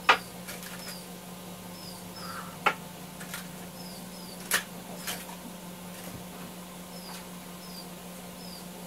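Scattered sharp clicks and taps of metal parts and tools being handled on a wood lathe's headstock during spindle removal, the loudest just after the start, over a fan's steady hum. Faint short high chirps repeat at irregular intervals throughout.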